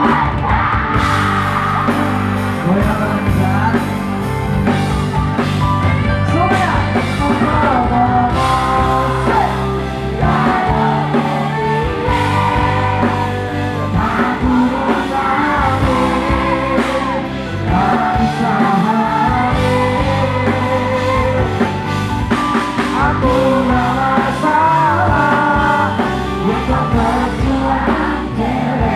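Live band playing a song through stage loudspeakers, with a male singer's voice over guitar and a steady beat.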